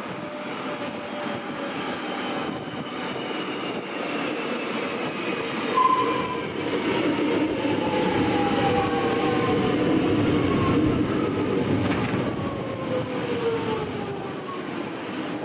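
X'trapolis electric train braking into a station, its traction motors whining in several tones that slide steadily down in pitch as it slows to a stop. Under the whine is a running rumble, with a short squeal about six seconds in.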